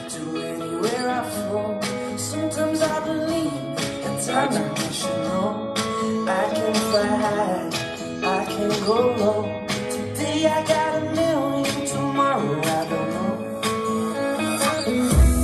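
Music with a singing voice over plucked guitar and a steady beat.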